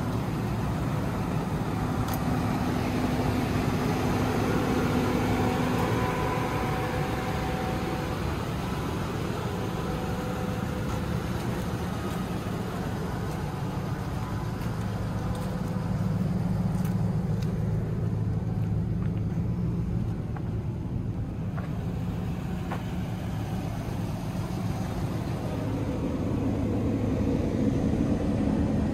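Nissan Titan's 5.6-litre V8 idling steadily with a low hum.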